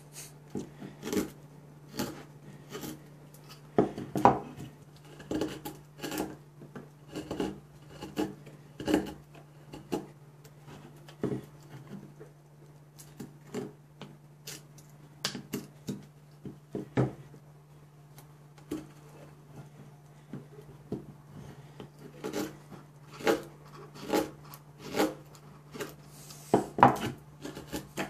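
Mora Companion MG carbon-steel Scandi-ground knife whittling a pine block. It is a long run of short shaving cuts, roughly one or two a second, broken by a few short pauses.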